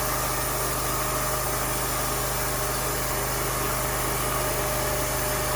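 A sawmill's engine running at a steady idle, an even hum with a constant pitch.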